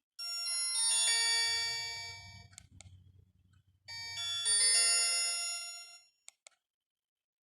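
Alcatel One Touch 1013D ringtone playing from the phone's small speaker: a bell-like chiming phrase heard twice, each ringing out and fading away. It stops about a second before the end.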